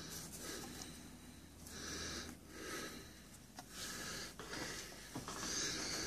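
A person breathing audibly close to the microphone, about five breaths in a row, each a soft hiss of roughly half a second.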